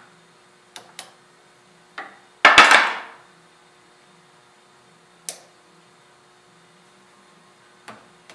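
Small hammer striking a steel punch against a Remington 700 bolt's firing pin assembly: a few light taps, then a loud quick cluster of blows about two and a half seconds in, followed by a couple of single metallic knocks.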